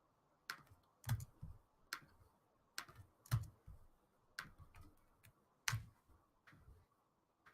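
Faint, irregular clicking of a computer keyboard, about one or two keystrokes a second, some landing with a dull thump.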